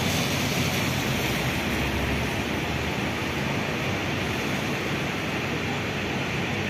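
Steady rushing noise of heavy rain, with the low hum of idling diesel bus engines underneath.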